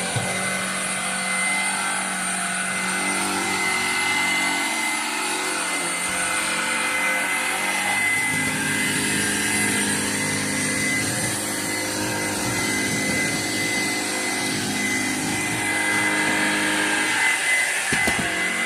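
Kenmore DS1030 cordless stick vacuum running on its low setting as it is pushed over a small carpet: a steady motor drone with a constant high whine, its lower hum changing pitch about halfway through.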